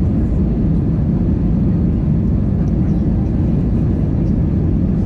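Steady in-flight cabin noise of an Airbus A320: an even, low drone of the engines and the air rushing past the fuselage, heard from inside the cabin.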